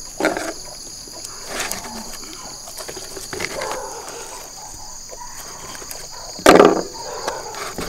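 Steady high chirring of an insect chorus, with a few short, louder noises over it; the loudest comes about six and a half seconds in.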